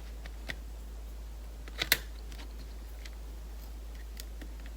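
Small sharp clicks and taps of a tool against the plastic and parts of a Nintendo 3DS XL being prised apart to free the bottom screen: one click about half a second in and a louder double click just before two seconds in, with faint ticks after, over a steady low hum.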